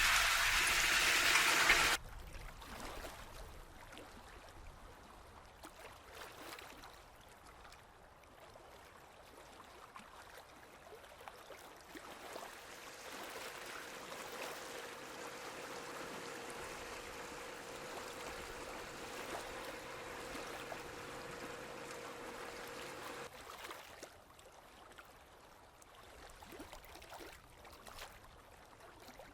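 A boat engine runs for about two seconds, then cuts off abruptly. After that, faint water trickles and gurgles, with a faint steady hum in the middle stretch.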